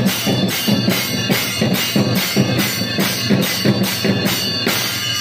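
A Kailaya vathiyam temple ensemble playing: pairs of brass hand cymbals clashed in a steady beat, about three strikes a second, with a low drum-like thud under each stroke.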